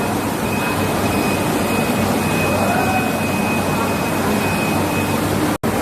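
Steady rushing background noise with a thin, steady high-pitched whine that stops about five seconds in; the sound drops out for an instant just before the end.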